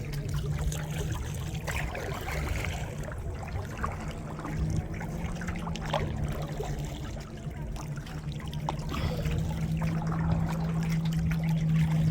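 Water trickling and dripping, with small splashes as a kayak paddle moves through the river, over a steady low hum that slides lower near the end.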